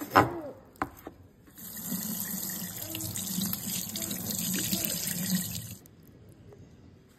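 A loud, sharp knock of a knife chopping through raw chicken on a wooden cutting board, then a kitchen tap running and splashing over chicken held in the hands above a stainless steel sink. The water starts about one and a half seconds in and stops about six seconds in.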